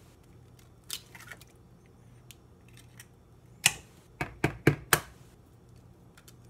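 Eggs being cracked against a mixing bowl: a couple of sharp taps about a second in, then a quick run of five taps and clicks past the middle.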